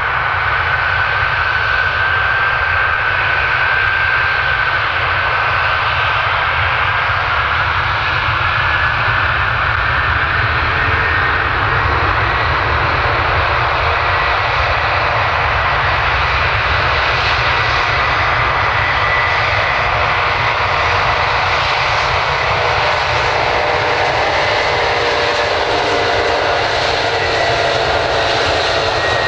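Antonov An-124-100's four D-18T turbofan engines at high power for the takeoff roll: a loud steady jet roar with a whine that rises in pitch about eight seconds in as the engines spool up, then holds.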